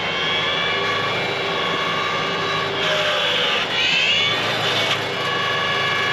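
Lane Shark hydraulic brush cutter head spinning with a steady high whine over the tractor's diesel engine. About three and four seconds in it bites into brush and small wood, adding bursts of shredding noise.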